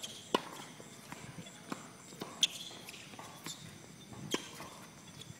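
Tennis ball being struck by rackets and bouncing on a hard court during a rally: three sharp pops roughly two seconds apart, with lighter bounces between.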